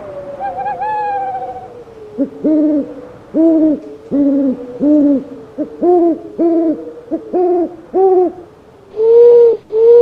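A small owl calling: a wavering whistled note, then a quick run of about a dozen short, arched hoots, ending in two longer, louder, rougher notes.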